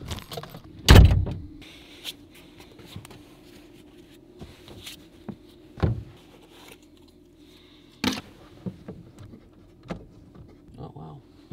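Bumps and knocks of someone climbing into and moving about inside a pickup truck's camper shell, loudest a heavy thump about a second in, then a few lighter knocks and rustles.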